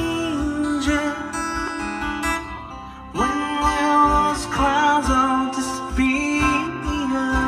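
A song with guitar, a singing voice and a thumping bass line, played loud through an upgraded car audio system (three-way front speakers and a 12-inch subwoofer) inside the car's cabin. The music drops briefly just before three seconds in, then comes back fuller and louder.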